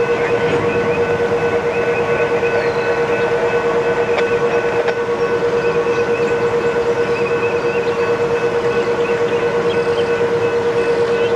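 Grade crossing warning bell ringing with rapid, even strokes while a slow freight train of covered hopper cars rolls through the crossing.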